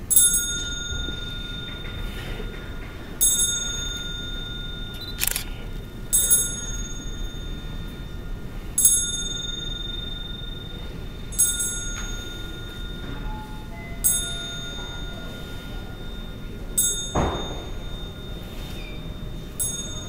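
A small handbell rung slowly, eight single strokes about every two and a half to three seconds, each leaving a clear ringing tone that fades away: a memorial toll, one stroke for each person remembered. A dull thump sounds once, about three-quarters of the way through.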